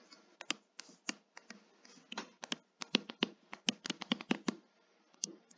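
Stylus tapping and scratching on a tablet screen during handwriting: an irregular run of light, sharp clicks.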